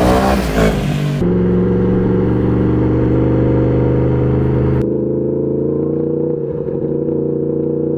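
Yamaha MT-10 SP's crossplane inline-four engine running through an Akrapovič exhaust: the note rises over the first second as it revs, then holds steady as the bike rides along. About five seconds in the sound turns duller as the higher hiss drops away.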